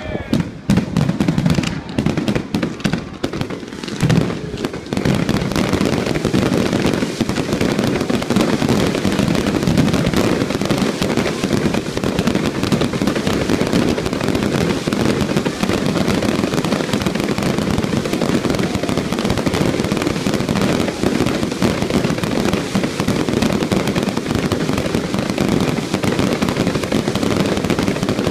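Fireworks display: separate bangs for the first few seconds, then from about five seconds in a dense, continuous barrage of bangs and crackling.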